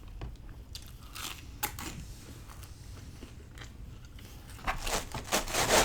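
Close-miked eating of pizza: bites and chewing with small crunches and crackles, a few scattered at first, then a louder cluster near the end.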